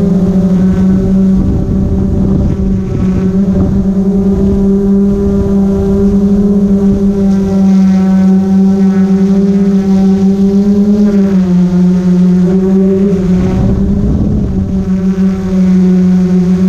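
Multirotor drone's propellers humming steadily at one even pitch, which steps down slightly about eleven seconds in as the throttle changes. Wind rumbles on the microphone now and then.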